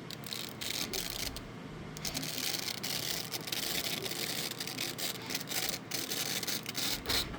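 Irregular rubbing and crackling scraping as the 3D print, mesh fabric set between its layers, is peeled off the printer's build plate.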